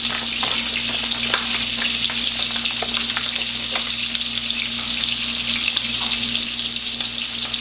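Steak frying in melted garlic butter in a pan: a steady sizzle with scattered small crackles and pops throughout.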